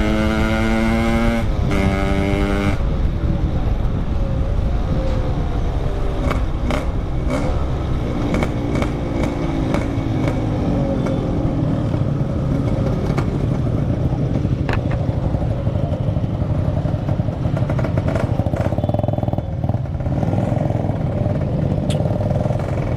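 Yamaha RX-King single-cylinder two-stroke motorcycle engine running at steady high revs, dropping off briefly about a second and a half in and again near three seconds. After that a steady rush of wind and road noise takes over, with the engine rising and falling in pitch underneath.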